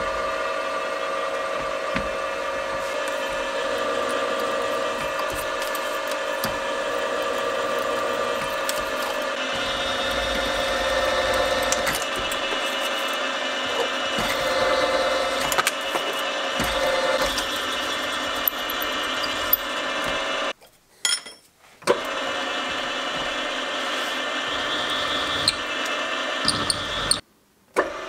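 Milling machine spindle running with a twist drill cutting into a thick metal ring: a steady motor whine with several held tones. The sound cuts out briefly twice in the last third.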